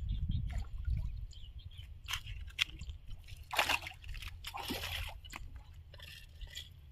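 Water splashing and sloshing in short bursts, the two longest about three and a half and four and a half seconds in.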